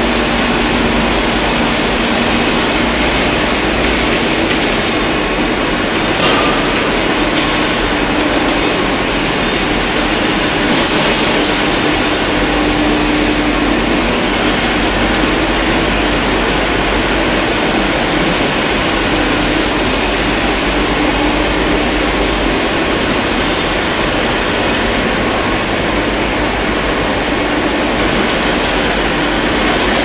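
Steady noise of optical fiber cable production machinery running in a factory hall, motors and turning pay-off reels and pulleys, with a faint hum. Two brief clicks come about six and eleven seconds in.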